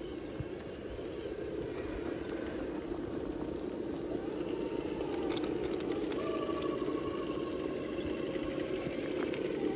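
Electric motor and geared drivetrain of a radio-controlled scale crawler truck whirring steadily as it crawls, with light rattling. A fainter, higher whine comes in about six seconds in.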